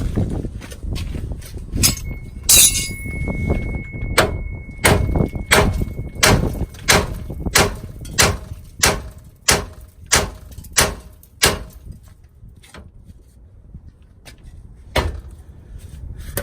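Heavy hammer striking the steel steering knuckle over and over, a steady run of blows about every two-thirds of a second, with a metallic ring under the early blows, then a pause and one final blow. The hammering shocks the tie rod end's tapered stud loose from the knuckle.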